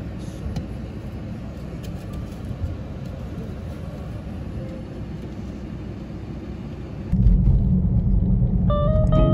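Low steady rumble heard inside a car cabin while snow is brushed off the windshield, with a few faint knocks. About seven seconds in it jumps to the much louder rumble of the Audi driving on the road, and plucked guitar music starts near the end.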